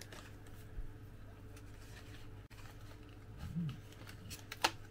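Quiet room with a low steady hum, broken by a few light handling clicks, the sharpest near the end, and a short low murmur about three and a half seconds in.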